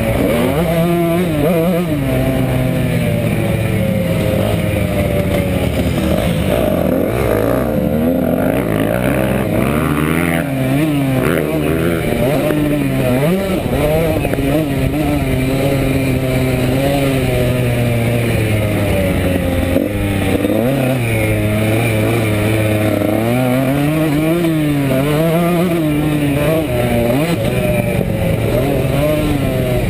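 Dirt bike engine heard from an onboard camera, its pitch climbing and dropping again and again as the rider works the throttle and shifts gears.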